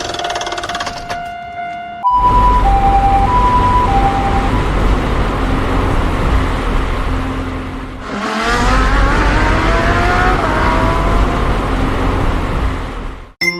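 Vehicle sound effects. A steady tone cuts off about two seconds in, then a loud engine rumble takes over, with an ambulance's two-tone hi-lo siren alternating twice. About eight seconds in, a rising whine like an engine revving up is heard, and the rumble cuts off abruptly near the end.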